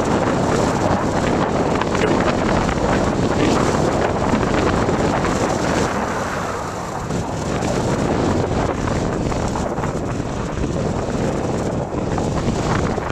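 Wind rushing over the microphone of a moving vehicle, mixed with engine and tyre noise, easing a little about halfway through.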